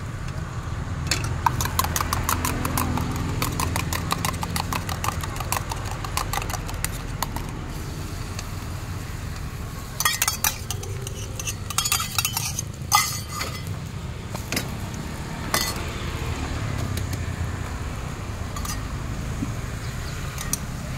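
Spoon beating eggs in a small steel cup: a fast, even run of metallic clicks, about four a second, for the first several seconds. Then scattered clinks and knocks of the steel cup and utensils against the woks and trays, over a steady low rumble.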